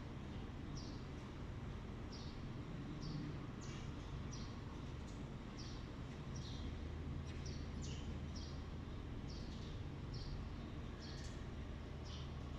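Steady low hum of milking-parlor machinery, with short high-pitched chirps repeating irregularly about once or twice a second.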